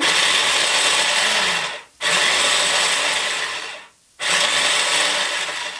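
Small electric food chopper running in three pulses of just under two seconds each, with brief stops between, chopping green pepper pieces.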